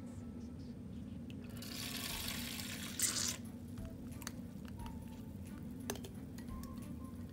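Plastic syringe squirting liquid out in a hissing stream for about a second and a half, ending in a short, sharper spurt, followed by a few light clicks.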